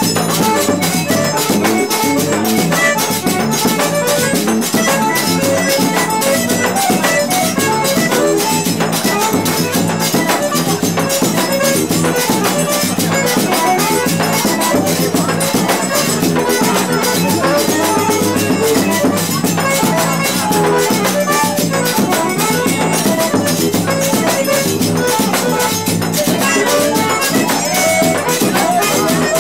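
Live instrumental forró pé-de-serra led by an eight-bass button accordion (oito baixos), with a drum and shaker-like percussion keeping a fast, even beat.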